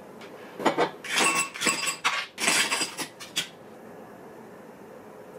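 Ice cubes dropped into a stemmed glass: a quick series of clinks and rattles from about half a second in, ending just before the midpoint of the clip's last two seconds.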